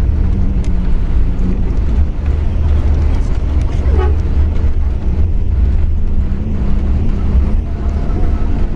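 Steady low rumble of a moving long-distance coach, engine and road noise heard from inside the passenger cabin.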